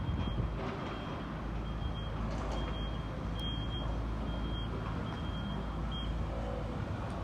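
Reversing alarm on heavy demolition plant beeping repeatedly over the low, steady running of its diesel engine; the beeping stops about six seconds in while the engine keeps running.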